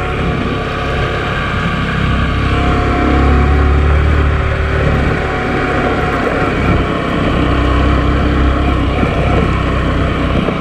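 Motorcycle engine running steadily while being ridden, with wind rumble on the microphone.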